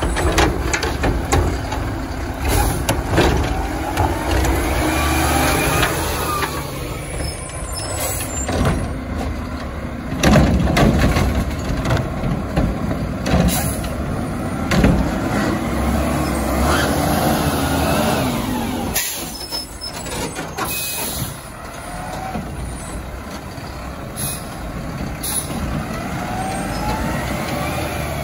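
Mack garbage trucks with Curotto-Can automated arms picking up and tipping wheeled carts. The diesel engines rev up and down as the hydraulic arms work, with knocks of the carts and several short hisses of the air brakes.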